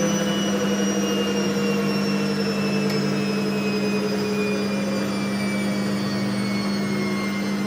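Gorenje W7513/S1 front-loading washing machine on its spin cycle: a steady hum under a motor whine that slowly falls in pitch as the drum speed drops.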